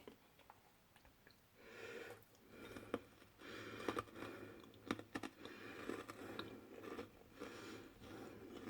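Crunchy snack fries being chewed close to the microphone, in repeated short bouts with sharp crunches, starting about a second and a half in.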